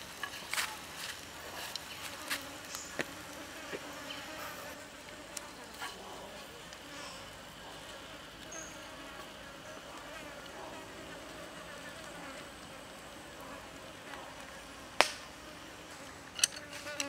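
A fly buzzing, its hum wavering in pitch, with a few sharp clicks, the loudest about fifteen seconds in.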